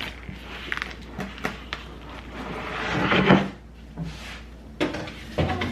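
Kitchen handling noises: scattered light clicks and knocks of containers, lids and cupboard doors being moved, with a louder rush of noise building up about three seconds in and stopping abruptly.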